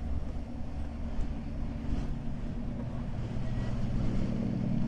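A heavy engine running with a low, steady rumble and a low hum that grows stronger about three seconds in.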